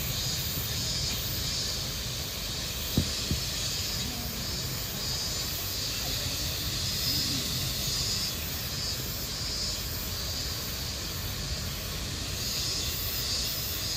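Steady outdoor drone of a cicada chorus, a high hissing buzz that swells and fades about once a second. Two short knocks sound about three seconds in.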